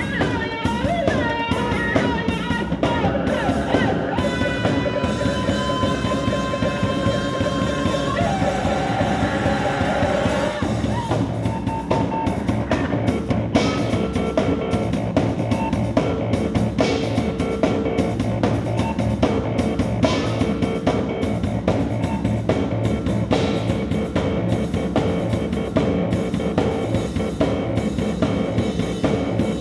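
Live band music: a drum kit played with amplified electronic tones over it, some held and some sliding in pitch, loudest in pitched lines during the first third.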